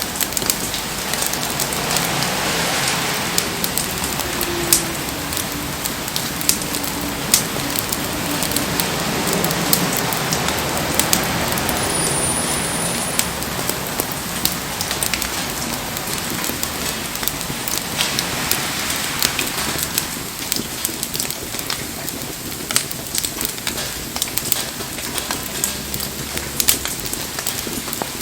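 Wood fire crackling and popping in steady rain, with the hiss and patter of rain falling around it.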